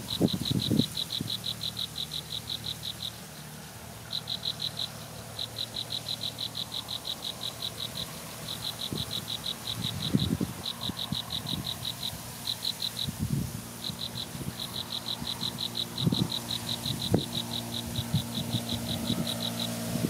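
A high, rapid pulsed trill from a calling animal, about ten pulses a second at a steady pitch, repeating in runs of one to several seconds with short breaks. A few brief low thumps sound now and then.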